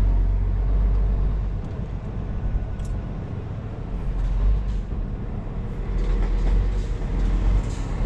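Scania R-series truck running, heard from inside the cab as a steady low engine and road rumble.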